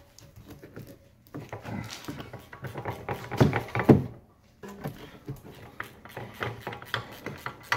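Ratchet wrench clicking and clanking as the 18 mm bolts holding a rear Brembo brake caliper are loosened, with two louder knocks about three and a half and four seconds in.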